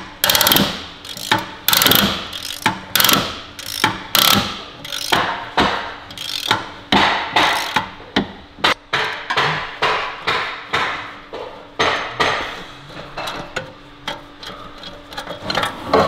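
Hand ratchet worked in repeated strokes on tight wheel-bearing bolts: sharp metallic clicks and knocks, irregularly about one or two a second, with the pawl slipping under the load.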